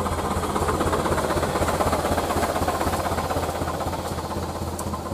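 Ragasa 4x4 truck's diesel engine idling, a steady low rumble with a fast, even clatter.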